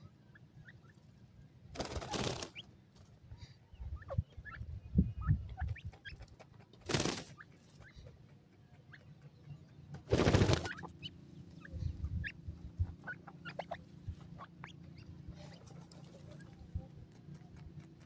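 Grey francolin foraging close by, giving low clucking calls, with many small ticks. Three short, loud rushes of noise break in at about 2, 7 and 10 seconds in.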